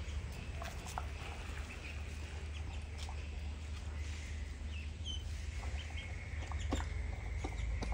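Chickens giving a few soft, brief clucks and chirps, with scattered short ticks, over a steady low hum.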